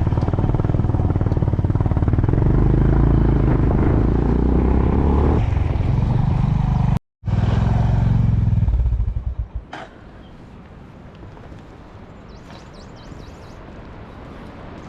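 Honda CB350 RS's single-cylinder engine running with a low, even thump, cut by a brief silent gap about seven seconds in. It falls away about nine seconds in, leaving only a quiet outdoor background.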